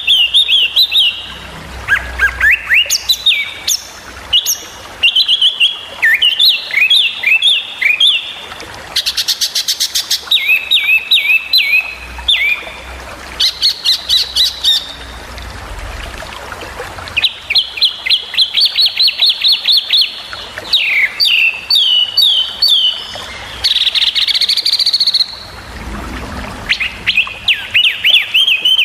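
Small songbird singing loud, fast phrases of sharp, high chirps that sweep up and down, broken by short pauses, with quick rattling runs of notes a few times.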